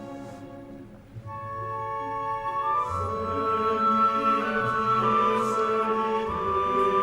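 Orchestral score music with choral voices: held notes that thin out near the start, then swell from about a second in and grow louder.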